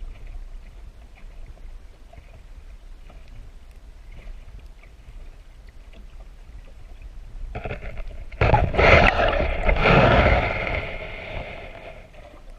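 Steady low wind and water noise around an open boat. About eight seconds in, a sudden loud rushing noise starts and fades away over about four seconds.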